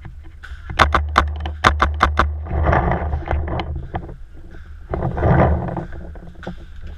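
About seven sharp paintball-marker shots in quick, uneven succession, followed by two stretches of rustling and scraping.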